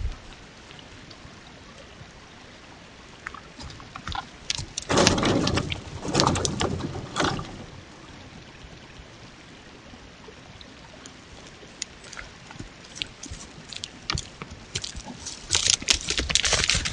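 Elk moving close to a trail camera: scattered hoof knocks and scuffs, with heavier noisy bursts of movement about five to seven seconds in and again near the end. Under it runs a steady creek hiss.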